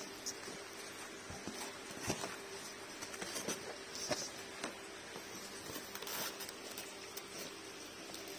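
Packing materials in a cardboard box being handled: plastic wrap rustling and styrofoam and cardboard knocking in scattered soft taps and clicks, with a few brief louder rustles.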